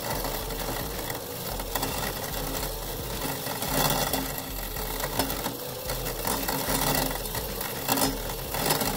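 Husqvarna Automower 315X robotic lawn mower running, its blades cutting long grass with a distinct, steady cutting sound that swells and dips a little.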